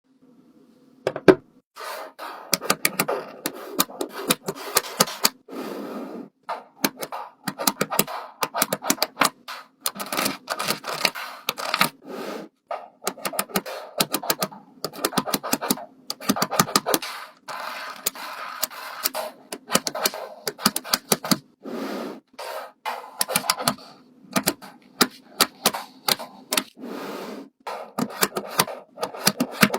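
Rapid sharp clicking and clacking of small hard objects, in bursts about a second long with short pauses between.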